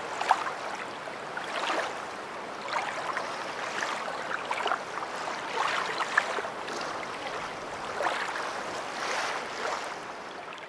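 River water flowing: a steady rush broken by frequent small splashes, easing slightly near the end.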